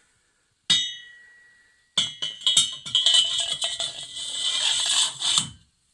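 Stainless steel parts clinking together: one sharp ringing clink about a second in, then a rapid clatter of metal-on-metal knocks and rattles with a bright ring for about three and a half seconds.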